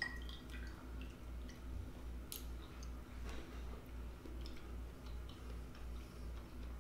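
Close chewing of a soft, juicy piece of Sprite-soaked melon, with small wet mouth clicks and one sharper click a little over two seconds in.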